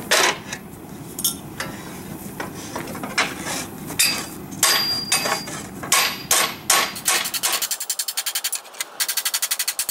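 Hand hammer striking a quarter-inch flat steel plate laid over an anvil, putting a hammered texture on its surface: sharp, uneven blows about two a second, some with a brief metallic ring. Near the end a fast, even ticking, about ten a second, takes over.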